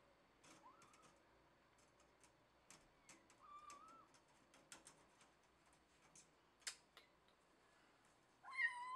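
A kitten's claws ticking and scratching as it climbs a window screen: quiet, irregular clicks throughout, with two faint short mews and a louder meow near the end.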